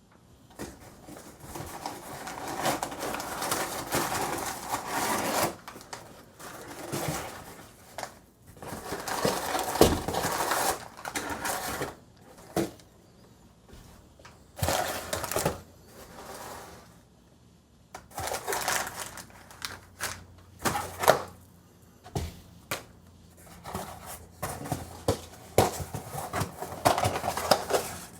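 Packaging being handled and unwrapped by hand: irregular rustling and crinkling with scattered clicks and knocks, in stops and starts.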